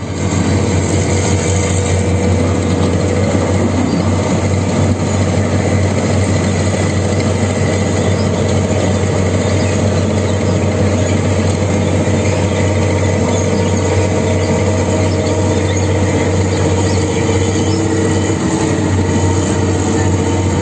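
Komatsu PC200 excavator's diesel engine running loudly and steadily through an open 'brong' exhaust with no muffler.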